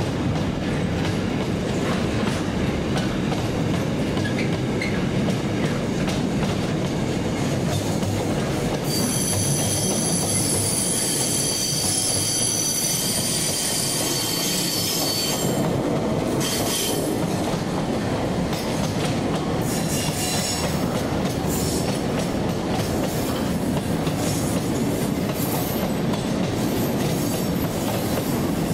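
A train running through the station with steady rumbling wheel and rail noise. From about nine to fifteen seconds in, the wheels give a high-pitched, ringing squeal.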